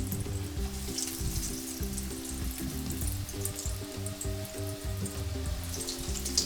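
Breaded shrimp-and-potato nuggets sizzling and crackling in shallow hot oil in a frying pan, over steady background music.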